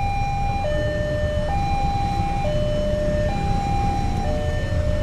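Railway level-crossing warning alarm sounding its two-tone signal, alternating between a higher and a lower tone about once a second, which warns that a train is approaching. Low traffic rumble underneath.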